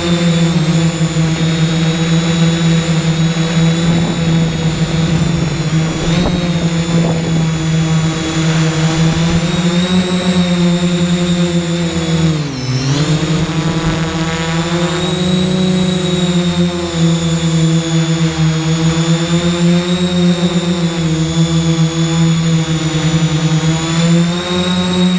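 Motors and propellers of a 3DR X8 coaxial octocopter buzzing steadily, heard from the camera it carries. The pitch wavers up and down as the motor speed changes, and drops sharply about halfway through before climbing back.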